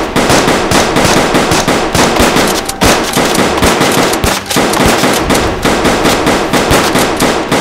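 Rapid automatic fire from a Nerf Rival blaster: a fast, unbroken run of sharp pops that breaks off briefly about three seconds in and again about four and a half seconds in.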